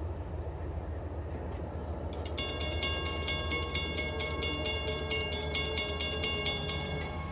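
Railroad crossing bell ringing in fast, evenly spaced dings, starting a little over two seconds in. A low rumble runs underneath.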